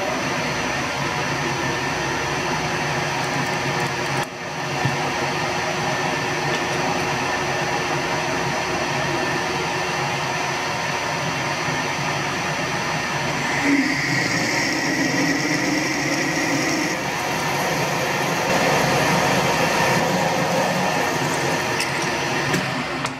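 Metal lathe running with a twist drill in the tailstock chuck drilling into the end of a spinning metal bar. A steady machining noise, with a higher tone for a few seconds just past halfway and a little louder near the end as the drill cuts.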